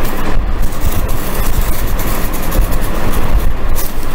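A box cutter blade cutting through cardboard on a tabletop: continuous rough, scratchy crunching with irregular clicks.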